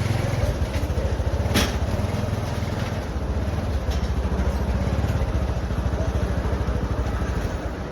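An engine running steadily at idle, a low pulsing rumble, with a single sharp click about one and a half seconds in.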